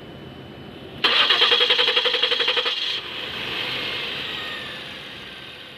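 Ford Taurus engine cranked by the starter, a rapid pulsing for about two seconds, then catching and running smoothly and slowly fading. This is a start-up after a fuel injector replacement.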